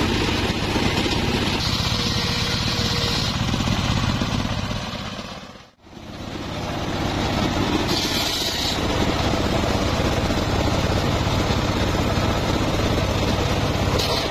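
Homemade table circular saw running steadily, with a higher whine as the blade cuts into wood about two seconds in and again about eight seconds in. The sound fades out briefly near the middle and comes back.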